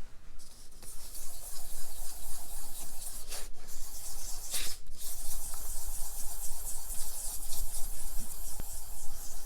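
Norton Atlas oil pump backing plate being rubbed back and forth on 1000-grit wet-and-dry paper, wetted with WD-40, on a flat MDF board: a steady rasping scrub. The plate is being lapped flat to remove the imprint of the pump gears. The scrub starts about half a second in and stops briefly twice near the middle.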